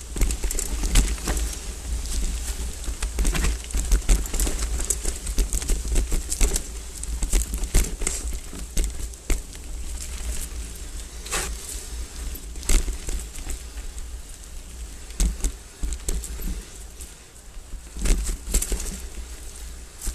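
Hardtail mountain bike rattling down rocky singletrack: irregular knocks and clatter as the tyres and frame hit rocks, over a steady low rumble that eases off for a few seconds near the end.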